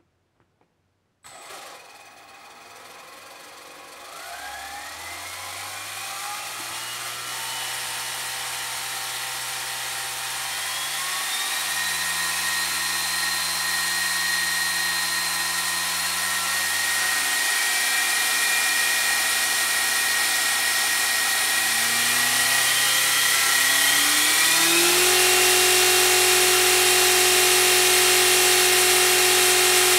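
Electric motor of a vintage GMP Cricket RC helicopter converted to electric power, starting about a second in and spooling up the main rotor. It makes a whine of several tones that steps up in pitch a few times and grows steadily louder.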